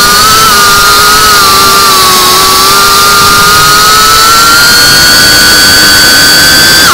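FPV quadcopter's brushless motors and propellers whining at steady throttle, the pitch holding nearly level and creeping slowly upward.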